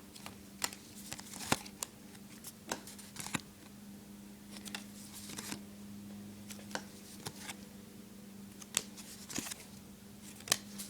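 Paper trading cards being handled and flipped through one by one: a scattered series of sharp little clicks and brief scuffs of card against card, over a steady low hum.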